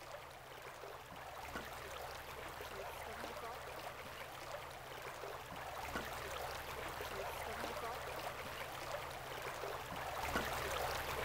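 Steady rush of a flowing stream, a continuous watery hiss.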